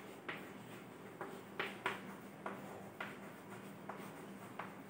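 Chalk writing on a blackboard: faint scratching with a string of light, sharp taps as the letters are formed.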